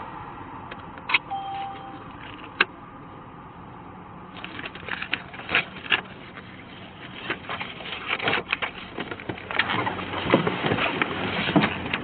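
A short beep and a few sharp clicks, then from about four seconds in a busy run of clicks, rustles and knocks as a police officer handles his paperwork and gear and gets out of his patrol car.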